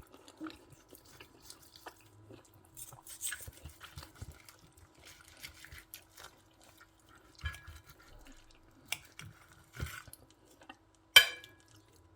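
Close-miked wet eating sounds: chewing and smacking on soft braised pork knuckle in its sauce, as scattered soft clicks. Near the end comes one sharp click with a brief ring, the loudest sound.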